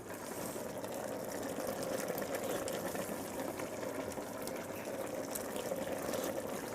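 Vegetable soup simmering in a pan of water, a steady bubbling with many small pops.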